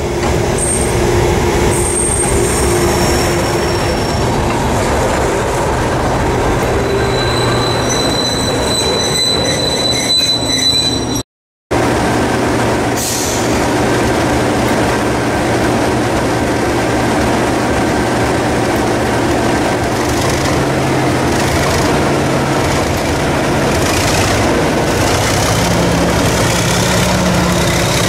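Class 37 diesel-electric locomotive 37703, with its English Electric V12 engine, running slowly past with its train, with thin high wheel or brake squeals in the first part. After a short break in the sound the engine runs steadily alongside, and its pitch rises near the end as it picks up power.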